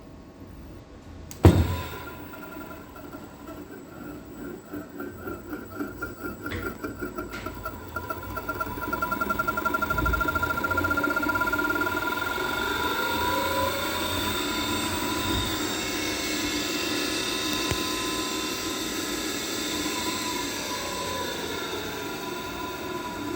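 A sharp click, then an AC servo motor driven by a Control Techniques DBE220 servo drive on test: a pulsing that quickens and grows louder as the motor speeds up, settling into a steady electric whine with tones that glide up and down as the speed changes.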